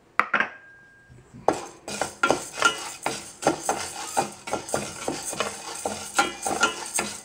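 A knock just after the start. Then, from about a second and a half in, a spatula stirs and scrapes urad dal as it dry-roasts in a stainless steel pan, the dry lentils rattling against the metal in quick, repeated strokes.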